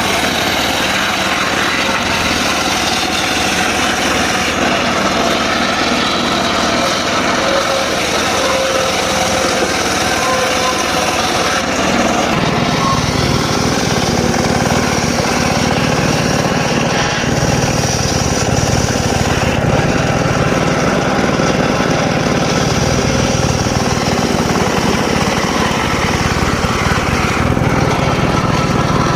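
Engine-driven mobile circular saw running and cutting dry teak wood. The sound is steady and loud, and about twelve seconds in a deeper hum joins it.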